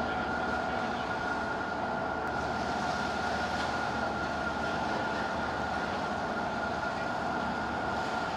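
Steady mechanical drone with a constant high whine running through it, unchanging throughout.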